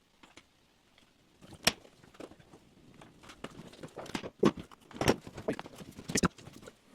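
Footsteps and scattered knocks and clatters of handling work, nearly silent at first and getting busier, with a few sharper knocks standing out in the second half.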